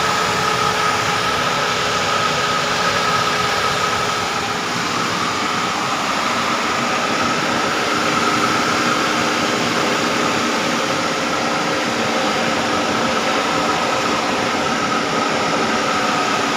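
Nissan car engine running steadily just after starting, a constant whine over an even rushing hiss.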